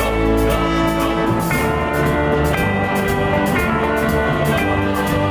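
Instrumental music: held chords that change about once a second over a steady drum beat.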